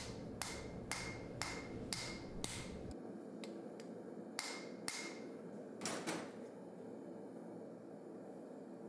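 Light hammer blows on a red-hot steel plane blade, setting a forge-welded plug: about five even blows two a second, then a few more spaced out, each with a short metallic ring. A steady low hum stops about three seconds in.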